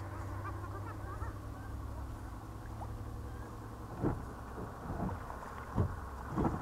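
Steady wind rumble on the microphone, then from about four seconds in, several splashes as a hooked white bass thrashes at the water's surface while being reeled in.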